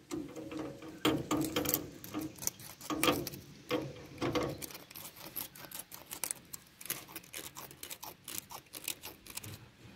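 Irregular light metallic clicks and scrapes from a corroded battery cable terminal clamp and its bolt being handled and worked by hand.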